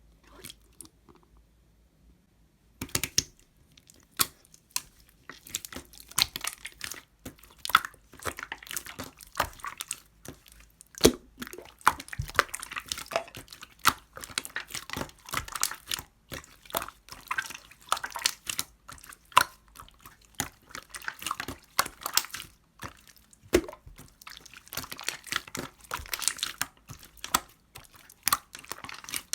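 Pudding-textured slime being squished and pressed by hand, giving a dense run of sticky crackles, pops and clicks that starts about three seconds in.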